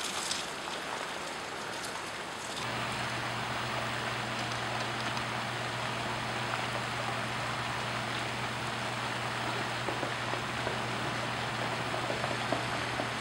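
Flash-flood water rushing down a paved street: a steady hissing wash of moving water, louder after a cut about two and a half seconds in, where a low steady hum also comes in.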